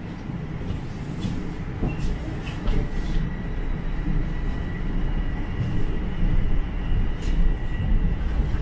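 Toronto subway train heard from inside the car as it pulls away and picks up speed: a steady rumble of wheels on track growing louder, with a thin high whine of the drive motors throughout and a second, higher whine joining about three seconds in.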